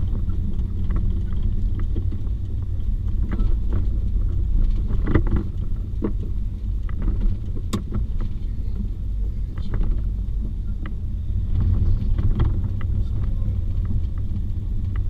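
Tow truck driving with a car on its lift: a steady low engine and road rumble, with scattered light rattles and clicks and one sharper click about eight seconds in.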